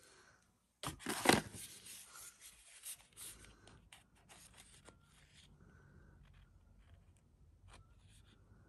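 Cardboard packaging being handled: a loud rustle and scrape about a second in as a small product carton is taken from the box, then lighter rubbing and a few small clicks as the carton is turned in the hands.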